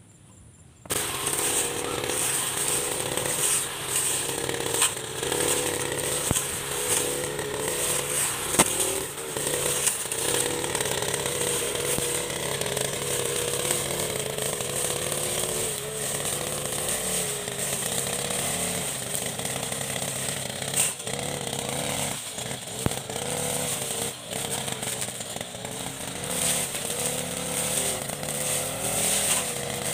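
Backpack brush cutter's engine running at high speed while it cuts tall grass, coming in abruptly about a second in; its pitch wavers and sags a little as the blade meets the grass.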